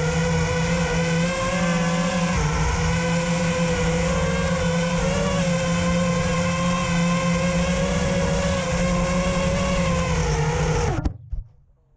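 Racing quadcopter's EMAX RS2306 2400kv brushless motors and propellers whining, heard from the onboard camera, holding a nearly steady pitch with small wobbles. The whine stops abruptly near the end, leaving only faint wind.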